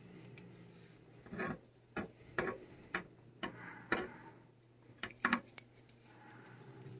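A cat gripping and biting a stuffed glove on a wooden stick: irregular light clicks and knocks, several close together in the middle seconds, with brief rubbing and rustling as the stick and glove shift against the cage floor.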